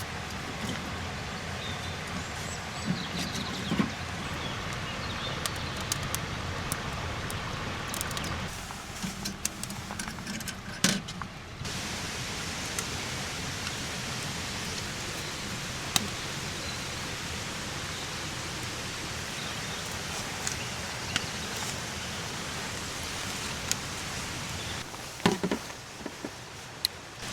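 Steady rushing-water noise with scattered sharp clicks and a few louder knocks, the loudest about eleven seconds in and a cluster near the end.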